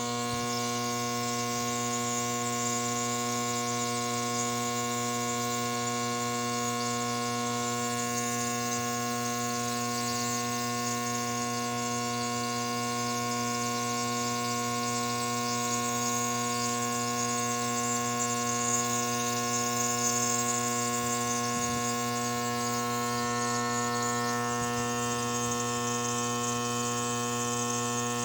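Compressor nebulizer running: a steady electric motor hum with a hiss above it, unchanging throughout.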